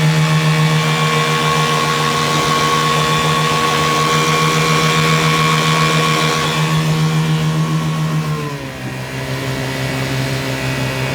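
1984 Chrysler Sea King 15 hp outboard motor running at full throttle with a steady drone. About eight and a half seconds in, the throttle is backed off and the pitch drops to a lower, steady note.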